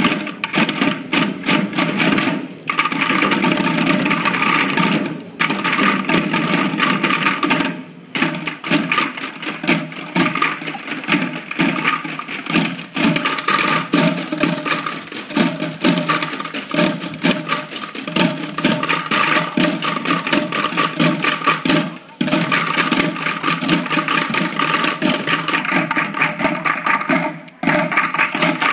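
Many children beating plastic buckets with drumsticks together, a dense rapid drumming that stops for a moment several times before carrying on.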